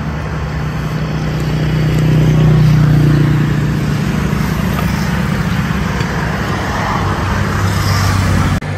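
Road traffic with a motor vehicle's engine running close by, growing louder about two to three seconds in and then easing into steady traffic noise.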